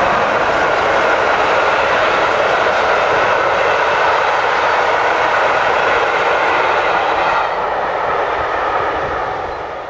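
A rake of passenger coaches rolling past at speed behind a steam locomotive: a steady rush and rumble of wheels on the rails. It drops a little after about seven seconds as the last coach goes by, then fades away near the end.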